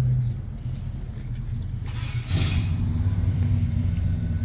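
Steady low engine rumble, growing louder about two seconds in, with a brief hissing rustle at that moment.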